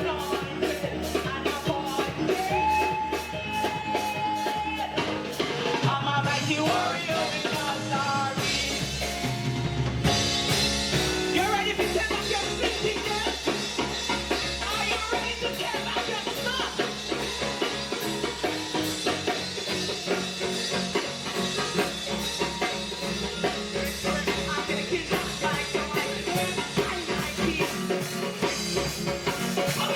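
Live gospel praise band playing an upbeat song with drum kit and steady beat, with singing.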